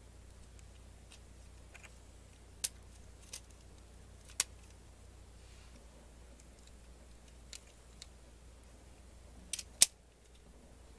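LEGO Technic plastic beams and pins clicking and snapping as they are pressed together and handled. There are several separate sharp clicks, with the loudest a quick pair near the end.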